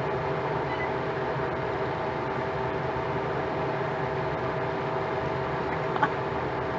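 Harvest Right home freeze dryer running with a steady hum. A single short click near the end.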